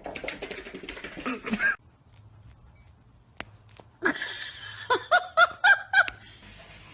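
A person laughing: breathy snickers at first, then, after a short lull, a quick run of about five short, high-pitched laughs.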